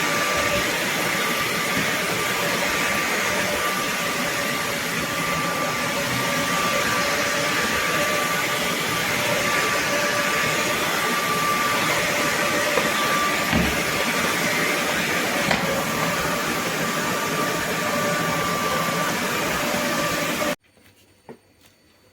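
Roborock F25 GT cordless wet-dry vacuum mop running in auto mode: a steady rushing noise of motor and roller with a thin high whine, cutting off suddenly near the end.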